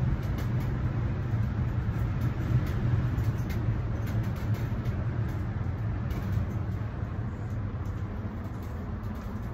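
Steady low rumble and hum inside a moving Ferris wheel gondola, easing a little near the end.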